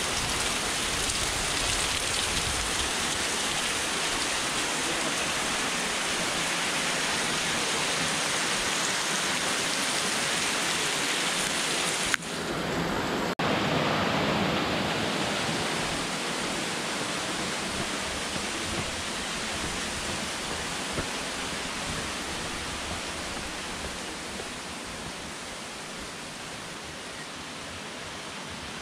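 Steady hiss and patter of water falling from a cliff-edge waterfall onto a wet stone path. After two abrupt cuts about twelve and thirteen seconds in, the steady rush of a waterfall in a rock gorge takes over, slowly growing quieter toward the end.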